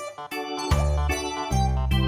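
Background music: a melody of quick notes over held bass notes.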